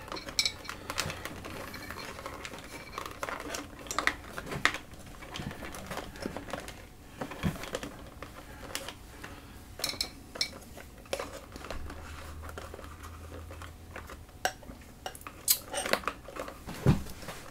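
Irregular clicks, taps and small knocks of hands handling guitar pedals and power cables on a pedalboard, as the excess cable is pulled back and parts are seated.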